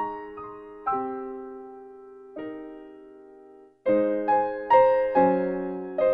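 Background piano music: slow struck notes and chords that die away. It cuts out abruptly a little before four seconds in and starts again at once, louder and busier.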